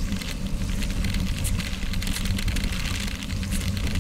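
Wind buffeting a bicycle's front-mounted action camera at about 20 mph, with the bike's tyres crunching and rattling over a packed gravel road in a steady, irregular crackle.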